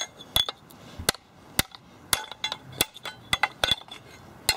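About ten sharp, irregularly spaced metal blows with a short ring after several of them: hand-tool strikes cutting the ends off a scrapped electric motor's copper windings.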